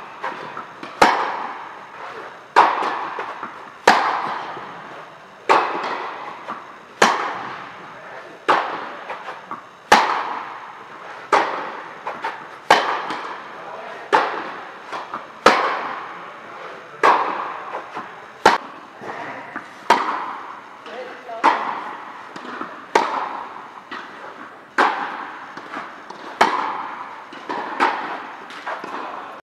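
Tennis rally in an echoing indoor hall: racket strokes and ball bounces, the louder strokes coming about every second and a half, each followed by the hall's ringing echo.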